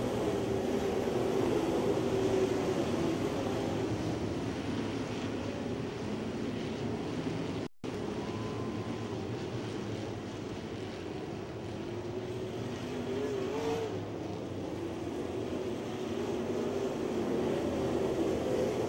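Dirt modified race cars' engines running at speed, a continuous drone that rises and falls as the cars go through the turns and down the straight. The sound cuts out completely for a moment about eight seconds in.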